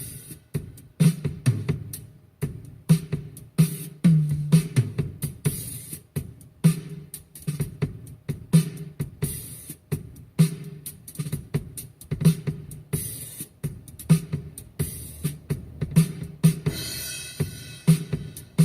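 A recording of an acoustic drum kit played back over a car audio system: a steady rhythm of deep drum hits about once a second, with quick sharp strokes between them and cymbal wash coming and going.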